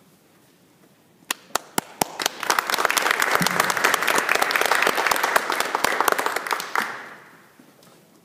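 Audience applauding: a few scattered claps about a second in, building quickly into steady clapping that dies away near the end.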